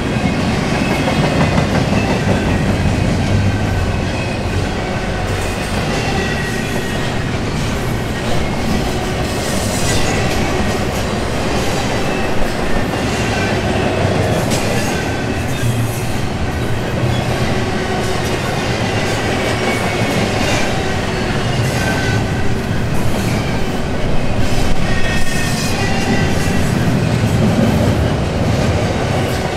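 Double-stack intermodal container well cars rolling past at speed: a steady rumble of steel wheels on rail with repeated clicking as the wheels cross rail joints.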